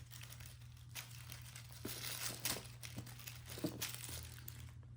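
Irregular crinkling and rustling with small ticks and crackles, a cat batting and pouncing on a crinkly toy, over a low steady hum.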